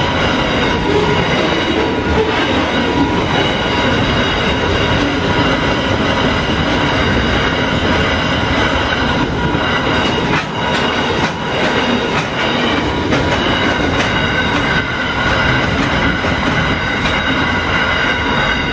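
Empty flat wagons of a freight train rolling over the crossing and clattering away, with the crossing's two WCH Type 4 electronic bells ringing steadily over them as a high, even tone.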